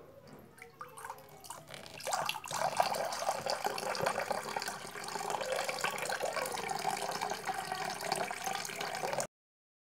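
Water poured in a thin stream into a stemmed glass, splashing steadily as the glass fills. It starts faint, grows louder about two seconds in, and cuts off suddenly near the end.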